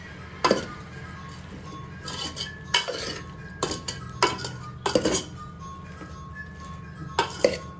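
Metal spoon stirring vegetables and spice powders in a large aluminium cooking pot, with about half a dozen sharp clinks and scrapes against the pot's side and rim.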